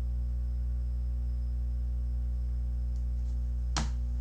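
Steady electrical mains hum on the call's audio line, with one brief click near the end.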